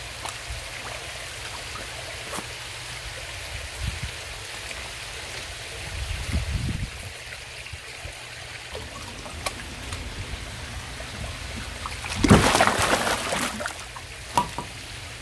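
Water trickling and running steadily, with a loud splash about twelve seconds in.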